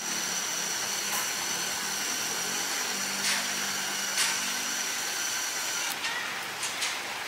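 A fuel pump dispensing gasoline into a motorcycle's tank: a steady rushing hiss of flowing fuel with the pump's hum and a few sharp clicks.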